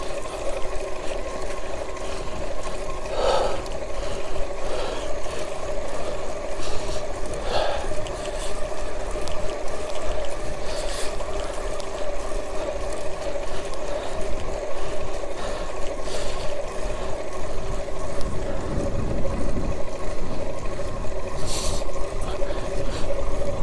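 A 500-watt electric bicycle kit motor whining steadily at a constant pitch while the bike rides along asphalt at speed, over wind rumble on the microphone.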